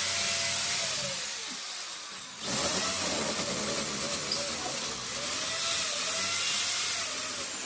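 Corded electric hammer drill boring and chipping into an old brick wall, with a steady motor whine under the noise. It stops about two seconds in, its motor winding down, then starts again half a second later and runs on.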